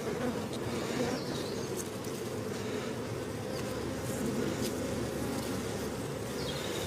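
Steady buzzing hum of a crowded honeybee colony in an open hive, with a couple of faint ticks.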